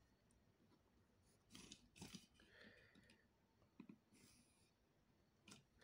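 Near silence with faint handling noises: a few soft taps and rustles as a plastic Roll-N-Draw rolling ruler is lifted, turned and set down on drawing paper.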